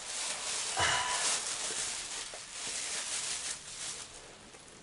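Rustling and shuffling as a person bends down and handles things to pick up a stack of books, with a brief vocal noise about a second in; the rustling fades toward the end.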